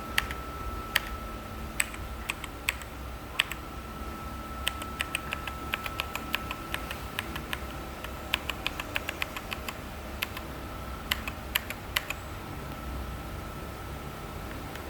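Keys being typed on an Azio MK Mac wired backlit mechanical keyboard: a few separate clicking key presses, a quick run of typing from about four seconds in, a few more presses near twelve seconds, then the clicks stop.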